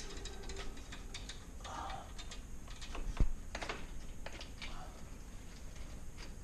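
Scattered light clicks and taps of small objects being handled, with one louder knock about three seconds in.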